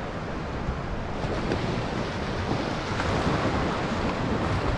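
Wind buffeting the microphone over the steady wash of surf on the beach.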